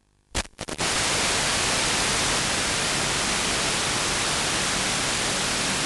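Loud steady hiss of radio static from an analog FPV video receiver, starting with a few crackles about half a second in, as the video link from the quadcopter breaks up: the quad's battery has died and it has dropped out of the sky.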